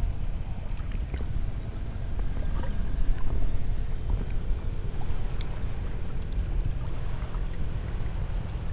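Steady low wind rumble on the microphone, with faint small splashes of water lapping against a small raft on calm sea.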